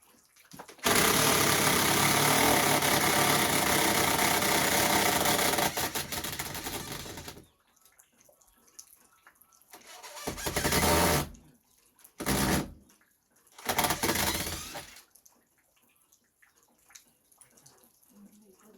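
A power tool starts abruptly and runs steadily for about six seconds, then winds down, followed by three shorter runs.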